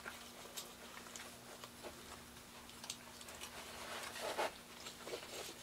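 Faint scattered clicks and rustling of hands handling small LED wiring and electronic parts inside a narrow wooden sign base, a little louder about four seconds in.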